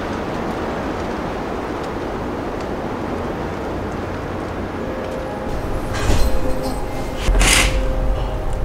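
Steady rushing wind of a snowstorm. About six seconds in, soft held music notes come in, with two short swishes near the end.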